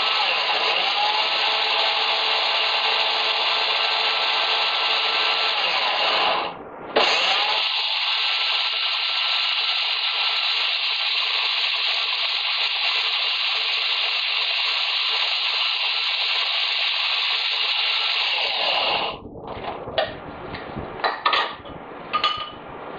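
Electric food processor motor running steadily as it purées strawberries. It cuts out for a moment about six seconds in and starts up again, then switches off near the end, followed by a few light clicks and knocks of handling.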